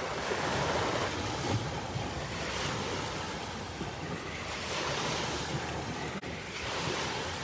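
Waves on the Sea of Galilee washing onto the shore: a steady wash that swells and eases, with some wind on the microphone.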